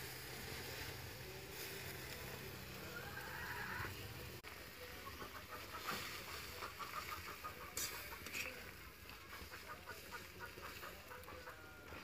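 Chickens clucking in a run of quick, repeated short calls, over a faint low hum that stops about four seconds in.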